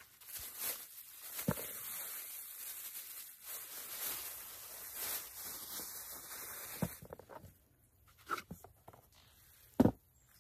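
Thin plastic produce bag crinkling and rustling as it is handled, for about the first seven seconds. Then a few light knocks and one sharper thump near the end.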